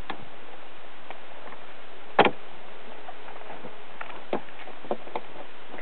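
Steady rush of river water, with a few sharp clicks and knocks, the loudest about two seconds in.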